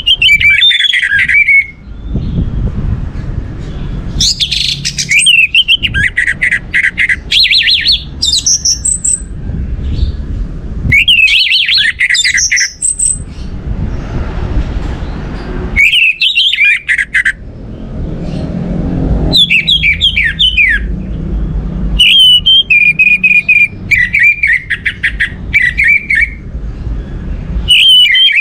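Orange-headed thrush singing: about six phrases of quick, varied whistled and chattering notes, separated by short pauses. A low rumbling noise lies under the song and fills the gaps.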